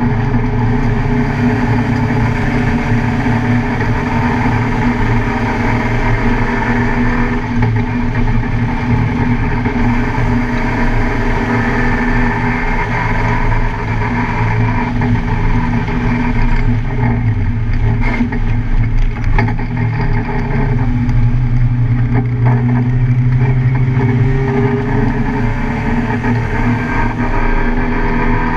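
Car engine running hard at speed, its pitch rising and falling slowly as the car is driven around a race track.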